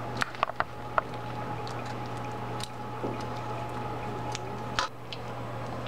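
Thick, gluey tapioca-starch paste squelching as a plastic spatula stirs it in a nonstick wok, with scattered sharp clicks and taps of the spatula against the pan, several in the first second and another near the end. The paste is being cooked until it thickens like glue.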